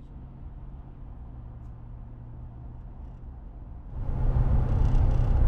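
Pickup truck cruising at highway speed, heard from inside the cab: a low steady drone of engine and road noise, which gets much louder and hissier about four seconds in as tyre and wind noise swell.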